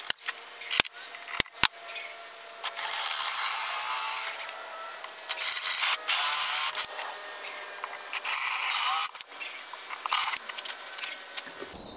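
DeWalt cordless drill boring dowel holes through a plywood panel, in four separate runs of a couple of seconds or less, its whine rising as it spins up. A few sharp clicks come first.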